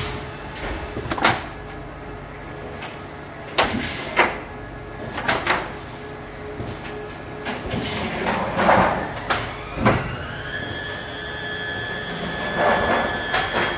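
Automatic plate changer of a Heidelberg Speedmaster XL 75 offset press at work: a series of sharp mechanical clunks and clicks at irregular intervals over a steady machine hum. About ten seconds in, a motor whine rises in pitch and then holds steady.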